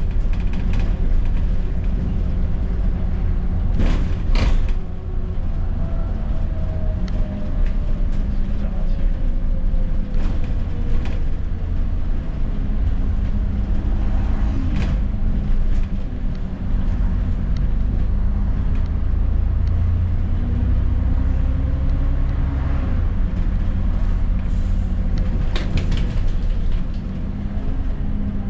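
ADL Enviro400 double-decker bus running on the road: a steady low engine rumble whose drone shifts up and down in pitch. A whine falls slowly in pitch a few seconds in, and several sharp knocks and rattles come through.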